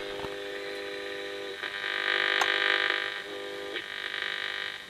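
A very simple one-coil direct-receiving radio giving out a steady buzzing tone with several pitches: an interference signal, not a radio station, which the builder suspects comes from a nearby solar panel regulator. About a second and a half in it swells louder and hissier for about a second and a half, with a click in the middle, then settles back to the steady buzz.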